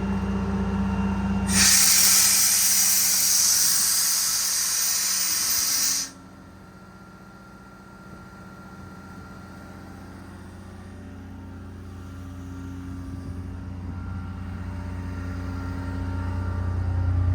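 Heavy diesel truck engine running, then a loud hiss of about four seconds that cuts off sharply, after which a low rumble slowly grows louder toward the end.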